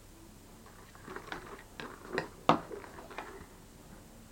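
Gille GTS V1 full-face motorcycle helmet being handled, with a run of clicks and knocks as its visor is raised; the sharpest click comes about two and a half seconds in.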